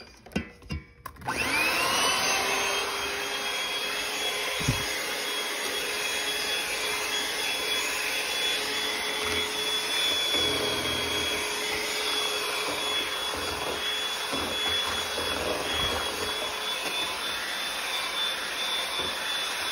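After a few clicks, an electric hand mixer starts about a second in, its motor whining up to speed. It then runs steadily with a high whine as the beaters whisk milk and ice cream mix in a stainless steel bowl.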